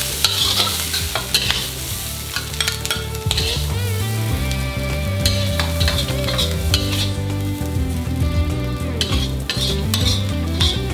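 Metal spatula scraping and knocking against a wok while chopped preserved radish is stir-fried in a little oil, with a steady sizzle under the repeated strokes.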